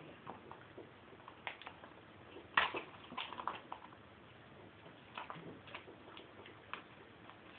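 Faint, scattered clicks and taps from hands working masking tape down into a painted four-piston brake caliper and shifting it on a paper-covered table; the sharpest tap comes about two and a half seconds in.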